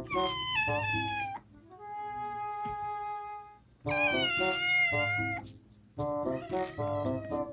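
Kittens meowing to wake their owner: two long meows, the first falling in pitch and the second wavering, with a steady held cry between them, over light background music.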